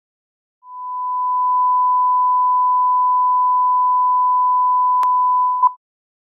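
Colour-bars test tone: one steady, pure high-pitched tone that fades in about half a second in and holds. A sharp click comes about five seconds in, then a short countdown beep as the tone stops.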